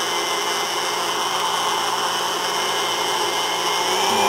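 Countertop blender running steadily, pureeing a peach soup of cooked peaches, cream and yogurt. Its motor pitch rises slightly near the end.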